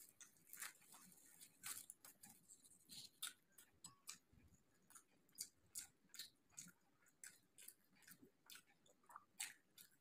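Faint close-miked chewing of a mouthful of samosa: soft, irregular wet mouth clicks and smacks, about two or three a second.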